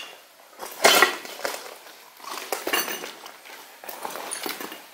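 Footsteps crunching over broken plaster and rubble, with scattered clinks of debris and one sharper crack about a second in.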